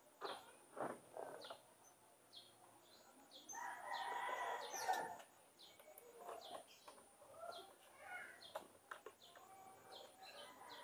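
A rooster crowing once, about three and a half seconds in, over scattered short bird chirps, with a few short knocks in the first second and a half.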